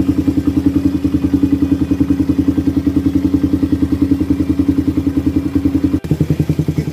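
Suzuki Satria FU 150's single-cylinder four-stroke engine idling steadily through a LoneRider HE full-stainless aftermarket racing exhaust, with an even, pulsing beat. About six seconds in the sound breaks off for an instant and comes back on a lower note.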